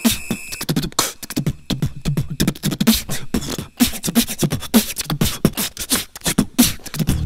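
Beatboxing: a fast rhythm of low kick-like thumps with sharp mouth clicks and hisses.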